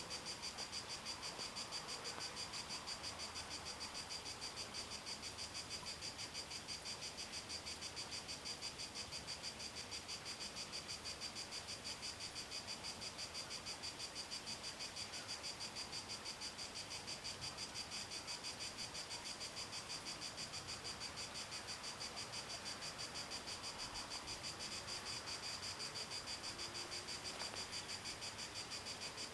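Level-crossing warning bell ringing without pause in rapid, evenly spaced high-pitched strokes, signalling a train on its way while the barriers are down.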